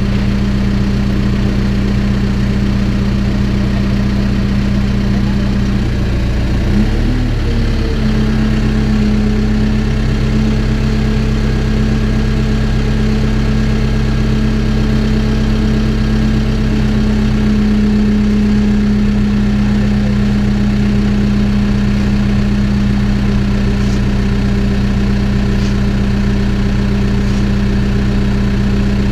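Backhoe's diesel engine running steadily; about seven seconds in its note briefly dips and wavers, then settles at a slightly higher pitch.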